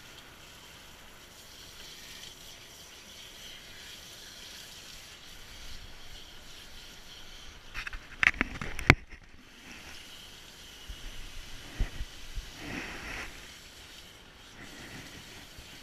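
Handheld tub sprayer running, water hissing steadily onto a wet dog's coat, with a short burst of sharp knocks and clatter a little past the middle and a few softer bumps after it.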